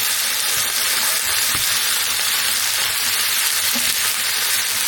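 Food sizzling and bubbling on a stovetop, a steady dense hiss.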